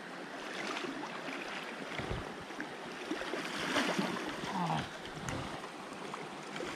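Shallow river current running over a gravel riffle, with splashing about four seconds in as a hooked brown trout thrashes at the surface beside the wading netter.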